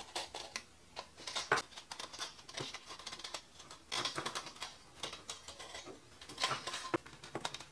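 Handling noise as a coiled-wire heating element on a mica sheet is pushed into a drink can: irregular light clicks, scrapes and rustles, busiest about a second and a half in, at four seconds, and near the end.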